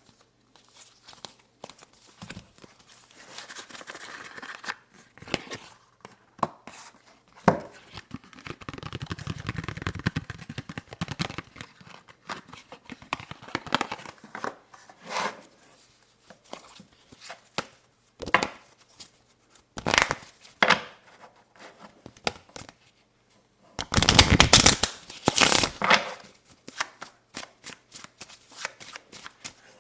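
Playing cards being handled: scattered taps and flicks, a stretch of rubbing and sliding, and a loud burst of rapid flicking about 24 seconds in.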